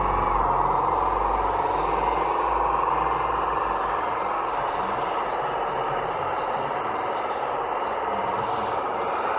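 Radio-controlled construction model running: a steady high motor whine that wavers slightly in pitch, with a low rumble in the first few seconds.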